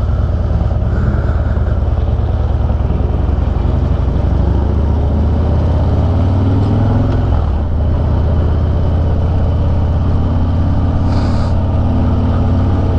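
Harley-Davidson Dyna's V-twin engine with a Bassani Road Rage 3 exhaust, running at low speed in city traffic, heard close through a mic on the bike. The engine note rises a little about four seconds in and drops back around seven and a half seconds; a short hiss comes near the end.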